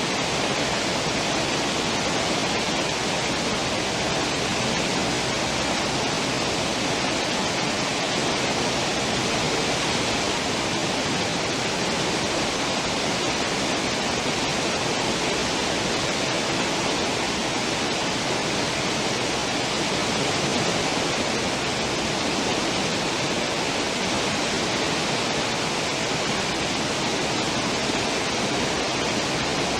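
Steady rushing and churning of a cruise ship's wake, the water foaming continuously behind the stern.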